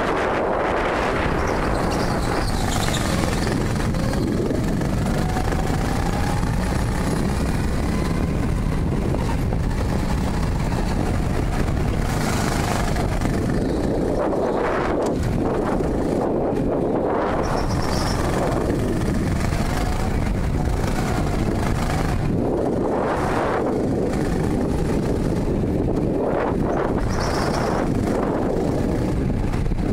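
Go-kart running at speed on an indoor track, heard from the driver's helmet, its motor noise and rushing air swelling and fading every few seconds through the corners.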